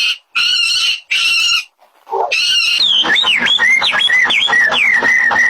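Animal calls cut one after another: three short calls in the first second and a half. Then comes a bird's fast run of whistled notes, each sweeping down, ending in a held whistle.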